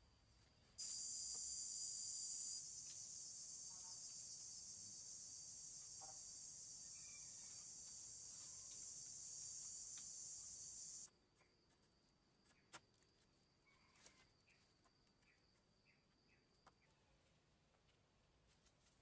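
High-pitched insect buzz that starts suddenly about a second in and cuts off abruptly about eleven seconds in. A fainter steady high insect tone runs under it. A few faint clicks follow once the buzz stops.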